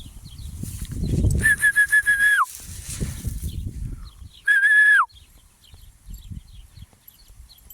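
A dog whistle blown twice to call the jagdterriers: a steady high tone of about a second, then a louder, shorter one, each dropping in pitch as it stops. Rustling and wind noise in between.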